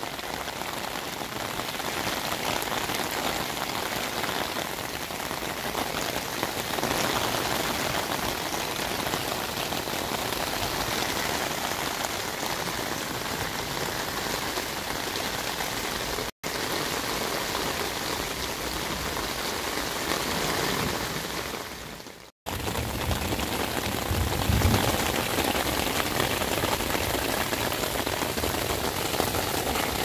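Steady rain falling on garden foliage and ground, an even hiss that breaks off for a moment twice.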